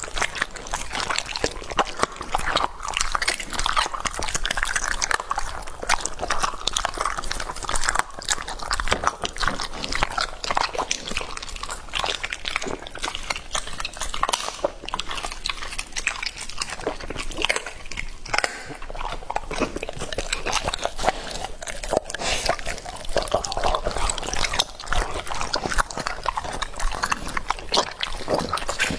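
Rottweiler chewing and biting raw chicken, a dense, continuous run of wet smacking and chewing clicks.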